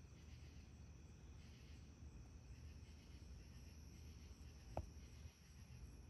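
Faint background of night insects, steady high trilling that swells and fades a little. A single short knock comes near the end.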